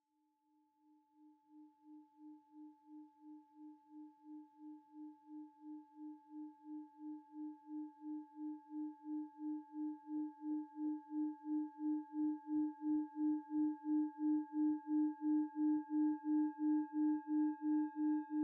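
Singing bowl being rubbed around its rim: one low, sustained ringing tone with higher overtones, wobbling evenly about two and a half times a second and swelling steadily louder.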